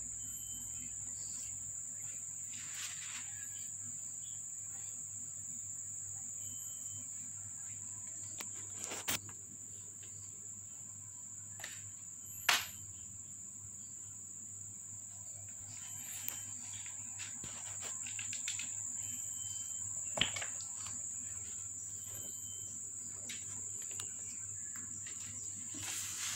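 Steady, high-pitched insect trilling, with a few sharp clicks scattered through it.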